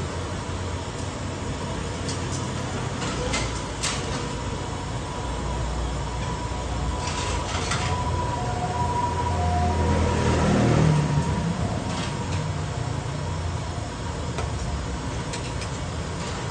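Steady low rumble that swells for a couple of seconds about ten seconds in, with a few light clinks as a ladle works a big pot of steaming rice noodle soup and fills a porcelain bowl.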